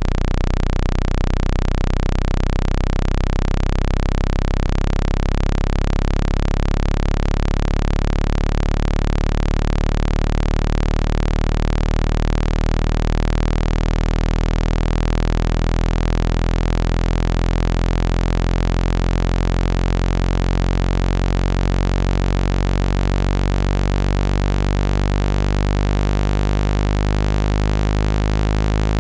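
Synthesized low-frequency water-eject tone for clearing moisture from a phone speaker: a loud, steady low buzz made of many stacked tones that beat slowly against each other.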